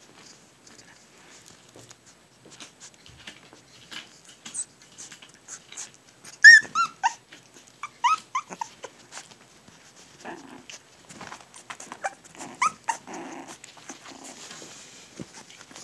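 Young puppies at play: short high-pitched yips and squeals that fall in pitch, loudest about six seconds in and again around eight and thirteen seconds, with low play growls in between and light scuffling clicks.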